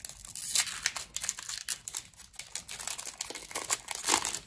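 Foil wrapper of a Pokémon TCG booster pack crinkling and tearing as it is opened by hand, with the loudest crackles about half a second in and again near the end.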